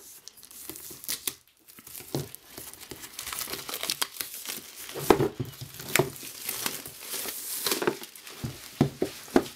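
Plastic shrink-wrap film being slit, torn and crumpled off a cardboard box: a dense crinkling crackle with sharp snaps, busier from about two seconds in.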